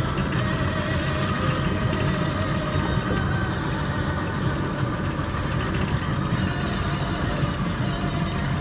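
Mahindra Bolero Pickup cruising steadily, heard from inside the cab: a constant low drone of engine and road noise.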